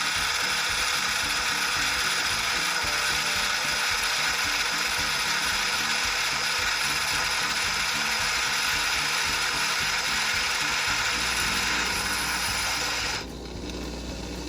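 Philips coffee machine's built-in grinder grinding coffee beans, a steady gritty whir that cuts off suddenly about 13 seconds in. A low hum starts shortly before the grinding stops and carries on after it.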